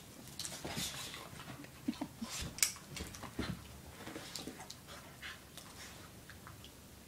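Two dogs play-fighting: an irregular run of short breaths, jaw clicks and scuffles, busiest in the first three seconds or so and thinning out after.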